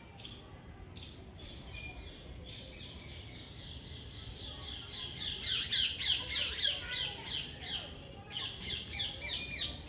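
Indian palm squirrel chirping: a fast series of sharp, falling chirps, about five a second. The chirps begin a few seconds in, break off briefly and start again near the end.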